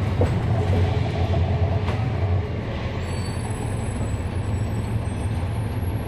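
Cummins ISL9 diesel engine of a 2011 NABI 40-SFW transit bus running, heard from on board as a steady low drone. It eases off a little about two and a half seconds in.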